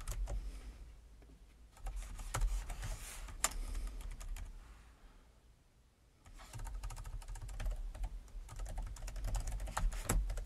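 Typing on a computer keyboard: quick runs of key clicks in three bursts, with a short pause just before the middle.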